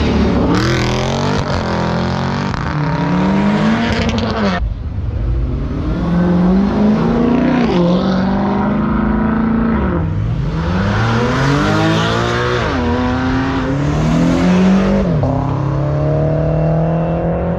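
A car engine revved hard and let fall back several times, its pitch climbing and dropping in repeated sweeps, while the car spins donuts with its tires squealing.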